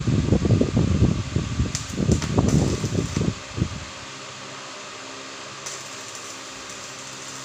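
Electric arc welding of a steel caster mounting plate: about four seconds of loud, rough, irregular crackling, then a steady hum with a faint high hiss while the arc burns.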